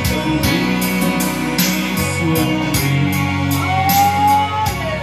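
A Christian song played through a PA system: a backing track with guitar and a steady beat, with a man singing into a microphone over it, holding one long note that slides near the end.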